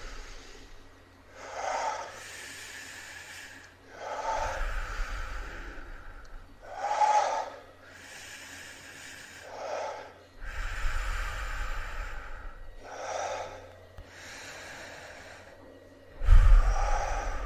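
A person's laboured breathing: short, sharp gasps for air every two to three seconds, with longer breaths out between them, some blowing on the microphone. The loudest gasp, near the end, comes with a low thump of air. The breathing acts out someone struggling to breathe.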